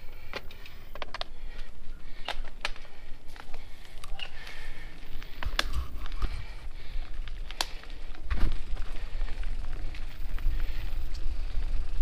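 Mountain bike rolling fast over a dirt trail strewn with dry leaves: tyre noise with scattered clicks and rattles from the bike, and wind rumbling on the microphone, heavier in the second half.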